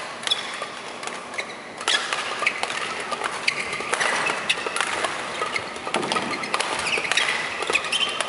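Badminton doubles rally: rackets striking the shuttlecock in quick succession as sharp clicks, and court shoes squeaking briefly on the court mat as the players lunge and turn, over the hum of a large hall.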